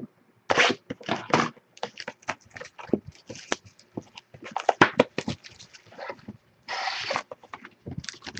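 Plastic wrapper and cardboard crinkling, rustling and tearing as a box of trading card packs is unwrapped and opened, in a string of short rustles with one longer rip near the end.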